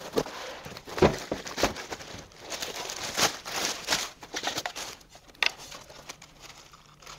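Clear plastic packaging bag crinkling and rustling as an LED panel light is pulled out of it, with small knocks of handling; one sharp click about five and a half seconds in, then it goes quieter.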